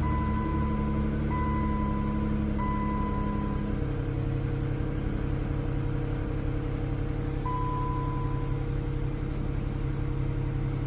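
A Chrysler 200's 3.6-litre V6 idling steadily just after start-up following an oil change, with its idle note settling lower about four seconds in. An electronic dashboard chime sounds several times in the first four seconds and once more a little past the middle.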